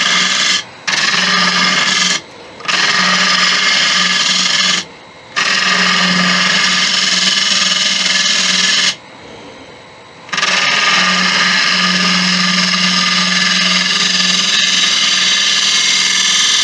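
A turning gouge cuts the end grain of a spalted beech vase spinning on a Laguna 1836 wood lathe, back hollowing the mouth. Shavings peel off in a steady, loud hiss over a low hum. The cut stops briefly three times in the first five seconds and for about a second and a half around nine seconds in, as the tool leaves the wood.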